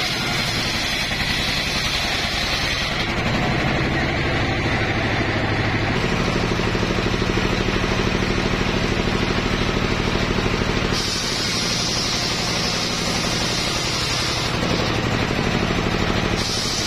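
Homemade engine-driven circular saw running steadily while its blade rips through wooden logs and planks: a constant engine hum under the hiss of the cut. Both the hum and the hiss change abruptly several times as the cut goes on.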